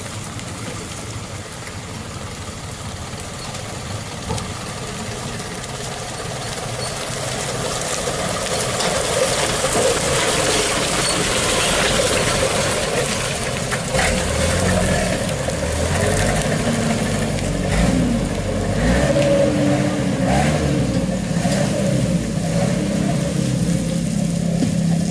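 Truck engine running under load and revving, growing louder over the first ten seconds; in the second half its pitch rises and falls as the revs change.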